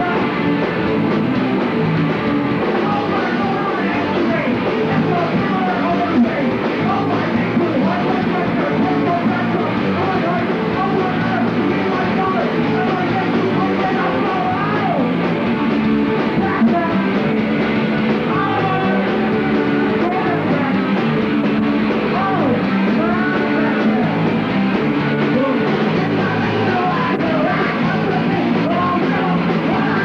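Live rock band playing: electric guitars, bass and drums, with a singer singing into a microphone.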